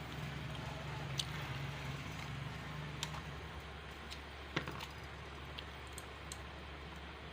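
A handful of sharp clicks and taps from hand tools on engine parts, spread over several seconds, above a steady low hum.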